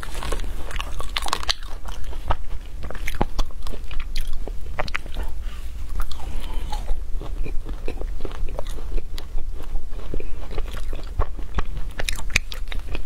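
Biting into and chewing a block of frozen matcha ice, close to the microphone: a steady run of sharp crunching cracks as the ice breaks between the teeth.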